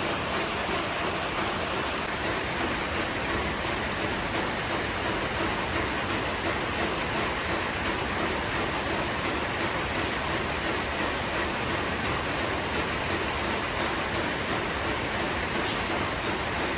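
Steady din of factory machinery, a dense wash of many rapid metallic clatters blending into one another like heavy rain.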